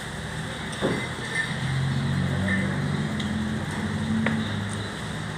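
A motor vehicle engine running steadily as a low hum, with a sharp knock about a second in.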